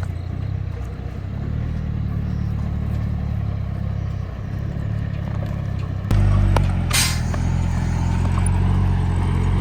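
Engine of a heavily loaded timber truck running steadily under load, getting louder about six seconds in. A short, sharp hiss is heard about a second after that.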